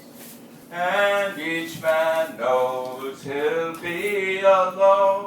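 A man singing unaccompanied in a slow line of long held notes.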